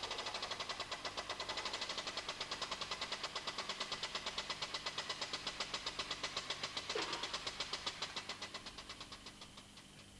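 Air-driven hydraulic pump of a frame-straightening bench pumping rapidly and evenly, several strokes a second, to power the pulling ram. There is a brief creak about seven seconds in, and the pumping slows and dies away near the end.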